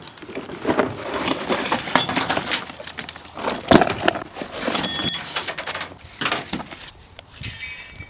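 Metal and plastic parts of a steering-wheel quick-release kit clattering and clinking as they are dumped out and handled on a car's hood, with a heavier knock near the middle and a short ringing metal clink soon after.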